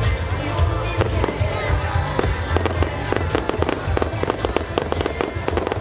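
Fireworks display: a rapid string of sharp pops and crackles, coming much thicker from about halfway through, with music playing underneath.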